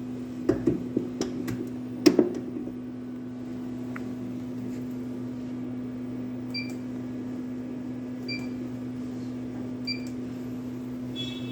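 Unimac commercial washing machine: a few sharp clicks and knocks in the first two seconds, then short electronic beeps from its control panel about every 1.7 s, over a steady electrical hum.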